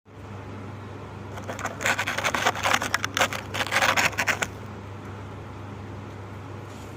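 Dry, crunchy ASMR crumbling material, the kind made of baked ash and sand, being crushed in a quick run of crisp crunches. The crunching starts about a second and a half in and stops about three seconds later, over a steady low hum.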